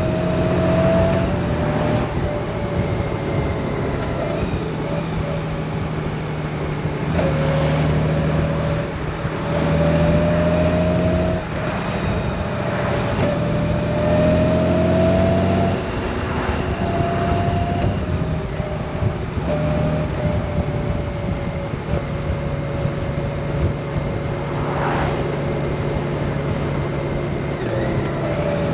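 Honda Gold Wing's flat-six engine running under way, heard from the rider's seat over steady wind noise. A whine rises slowly and drops back several times.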